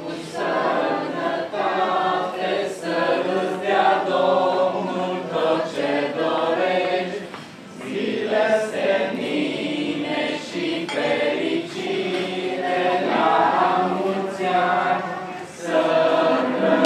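A group of men and women singing together, in long sung phrases with brief pauses for breath about halfway through and near the end.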